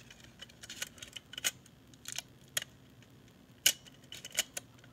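Irregular sharp clicks and taps of a floppy drive and its parts being handled and fitted back into place, with one louder click near the end.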